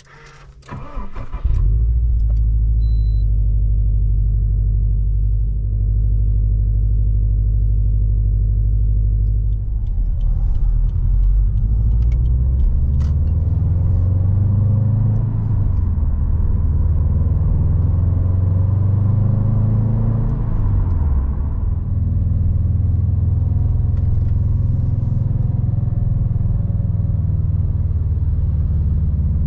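Subaru WRX STI's turbocharged flat-four engine running as the car drives, a steady low drone that comes in about a second and a half in. From about ten seconds on the engine note rises and falls a couple of times, with more road noise.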